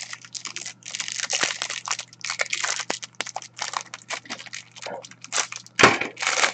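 Plastic wrapping crinkling and rustling in irregular bursts as a sealed pack of trading cards is opened by hand.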